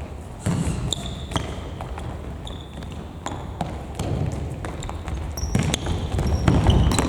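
Futsal ball being kicked and bouncing on an indoor court floor, with scattered sharp knocks and a few short high squeaks, echoing in a large gym hall.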